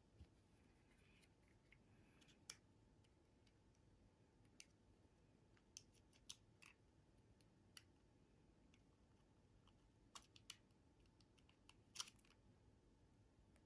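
Near silence, broken by about a dozen faint, sharp clicks and taps at irregular intervals, the strongest near the end.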